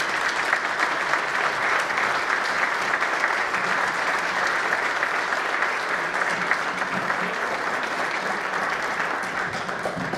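Crowd applauding, a dense, sustained clapping that slowly thins out near the end.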